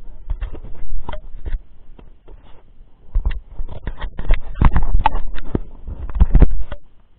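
Handling noise on a body-worn camera's microphone: irregular scraping, knocking and thumping from close contact, loudest from about the middle, stopping suddenly shortly before the end.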